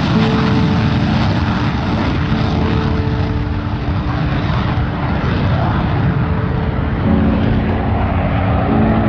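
F-16 fighter jet taking off in afterburner: loud, continuous jet engine noise with steady low hums in it, the sound shifting abruptly about seven seconds in and again near the end.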